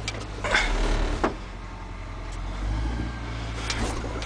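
A loader's diesel engine drones under load as it tows a dead-battery Ford 9000 semi on a chain, heard from inside the towed truck's cab. Sharp clunks and rattles come from the truck as the chain takes up and the truck starts to roll. The drone grows louder about two-thirds of the way through.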